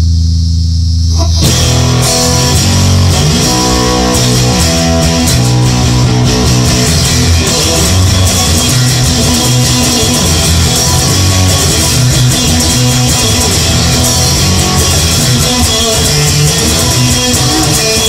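Rock song led by electric guitar. It opens on low held guitar and bass notes, and the full band comes in about a second and a half in.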